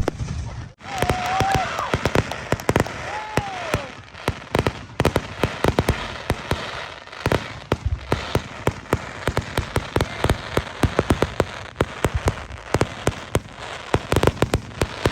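Fireworks display crackling and popping: a dense stream of sharp cracks and pops in quick succession, after a brief lull just under a second in.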